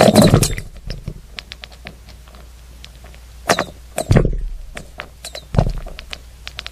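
Scattered sharp clicks and irregular knocks, with heavier thumps at the start, about three and a half and four seconds in, and again about five and a half seconds in, over a steady low hum.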